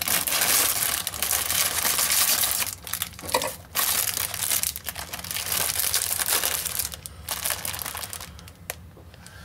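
Plastic bag of rolled oat flakes crinkling as it is handled, in several long stretches with short breaks, dying down near the end.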